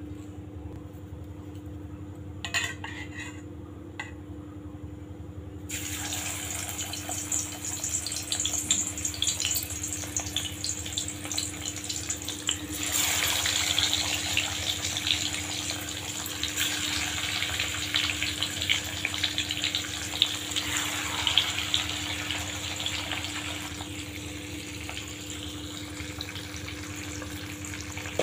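Marinated fish pieces frying in hot oil in an iron kadhai, a dense crackling sizzle that starts suddenly about six seconds in and grows louder from about thirteen seconds, easing a little near the end. A steady low hum runs underneath.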